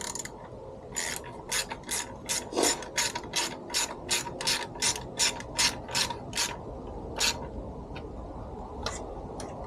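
Hand ratchet clicking in quick, even strokes, about three a second, as fasteners are run back in, slowing to a few scattered clicks after about six and a half seconds.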